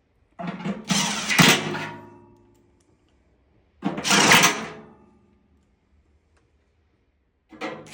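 Cordless drill driving quarter-inch screws into the furnace blower motor bracket: three short runs, the motor spinning down after each.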